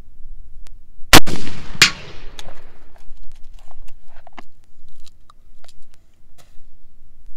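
A single shot from an 1854 Lorenz muzzle-loading rifle-musket with a paper cartridge: a loud, sharp report about a second in, a second sharp crack about two-thirds of a second later, then a long fading echo. Faint whirring and clicks follow as the bullet spins in flight, a whirr caused by paper from the cartridge stuck in the rings of the bullet.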